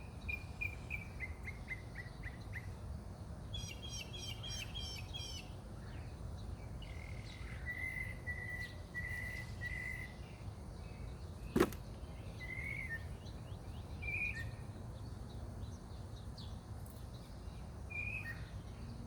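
Songbirds singing and calling: a falling series of short notes, a fast trill, then a run of even whistled notes and scattered chirps. A single sharp click about halfway through, over a steady low background hum.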